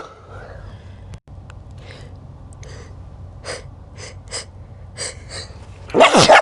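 Human sneezing: a run of short, quiet breaths and sniffs, then a loud sneeze near the end.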